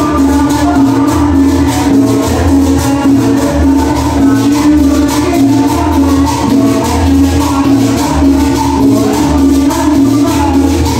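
Latin dance music played loud, with a steady bass beat and continuous percussion.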